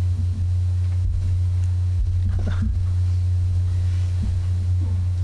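Steady low electrical mains hum coming through the sound system, with a faint muttered voice about halfway through.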